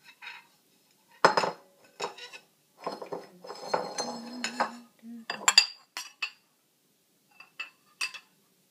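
Metal spoon clinking and scraping against a ceramic bowl as cubed cucumber and black olives are stirred. The sound is a string of separate sharp clinks, some with a brief metallic ring, busiest in the middle, with a few last knocks near the end.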